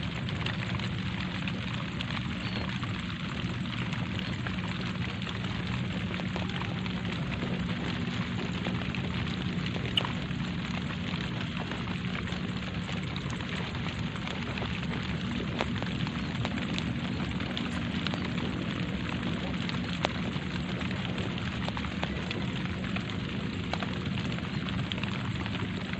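Light rain falling steadily, with individual drops ticking close by. A sharper drip lands about ten seconds in and again about twenty seconds in.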